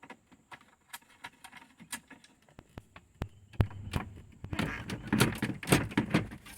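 Light scattered clicks, then a thunk about three and a half seconds in, followed by busier rattling and knocking as a car glovebox is worked loose from its retaining screw.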